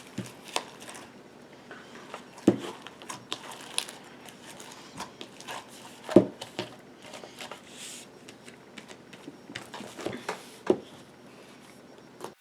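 Overactivated slime with foam beads being mixed in a bowl: scattered small clicks and crackles, with sharper pops about two and a half, six and ten and a half seconds in.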